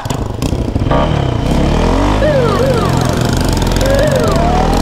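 Motorcycle engine running hard under acceleration, heard from on the bike, its pitch climbing and shifting. Short siren yelps and wails glide over it.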